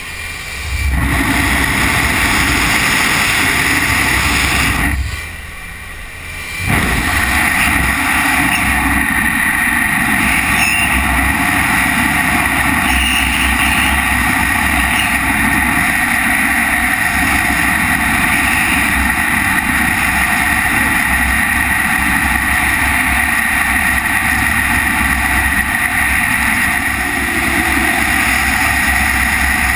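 Steady roar of freefall wind rushing over a helmet-mounted camera during a wingsuit jump. It rises about a second in and dips briefly about five seconds in.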